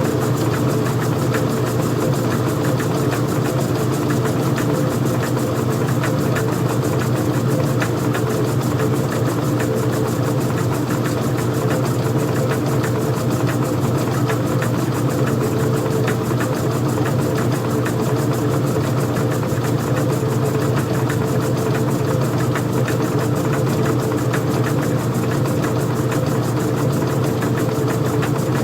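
Old-style front-loading washing machine running with a steady mechanical hum and a fine, fast rattle, holding constant without change.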